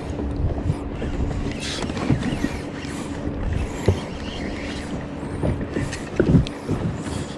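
Wind on the microphone and water around a kayak, with scattered knocks and a louder thump about six seconds in.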